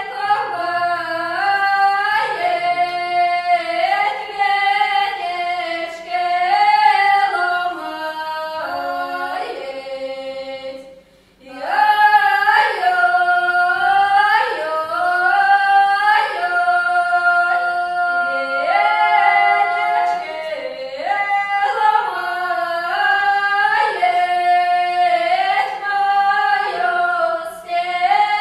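Two women singing a traditional Russian reaping song unaccompanied, their two voices moving together in harmony. They break off briefly for breath about eleven seconds in, then sing on.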